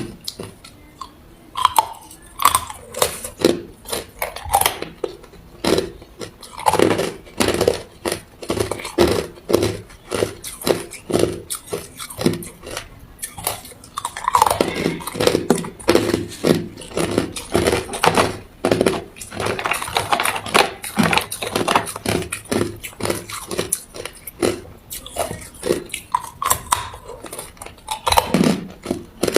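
Ice being bitten and chewed close to the microphone: a steady run of sharp, loud crunches.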